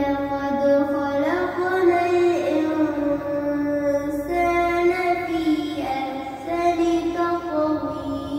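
A child's voice singing melodically, one voice alone, holding long notes through several drawn-out phrases.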